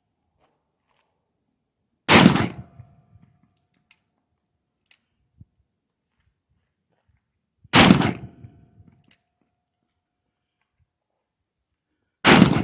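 Three shots from a snub-nosed Smith & Wesson .500 Magnum revolver firing 425-grain Magtech loads, spaced about five and a half seconds apart, each very loud with a short decaying tail.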